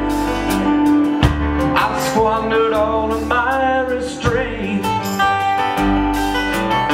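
Live band music: acoustic guitar strumming over bass and a steady beat, with a melodic lead line bending in pitch in the middle.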